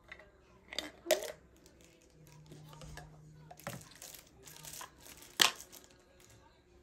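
Short clicks and knocks of a plastic soap dispenser and tumbler being handled and set down, with plastic packaging crinkling in between. The sharpest click comes about five and a half seconds in.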